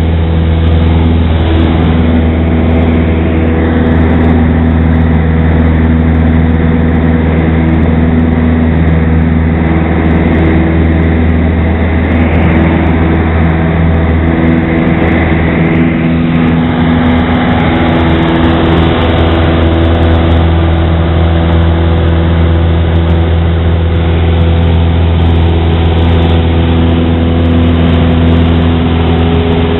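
A Cessna 172's piston engine and propeller droning steadily, heard inside the cabin in flight. The engine note shifts slightly about halfway through.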